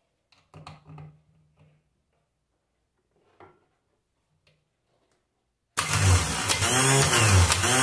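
Renault starter motor clamped in a vise, switched on with no load and spinning up suddenly nearly six seconds in, then running loudly with a wavering whine. From its noise the mechanic takes it for a starter running on a roller bearing rather than a bushing.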